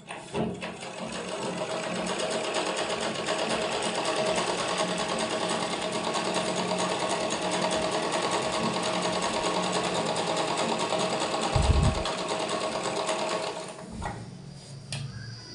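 Overlock (interlock) sewing machine running steadily as it serges the edge of a cotton handkerchief, stopping near the end. A brief low thump, the loudest sound, comes about three quarters of the way through.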